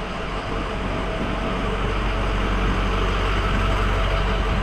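A pickup truck driving slowly through a wooden covered bridge and passing close by. Its engine and its tyres on the plank deck rumble steadily and grow louder as it nears.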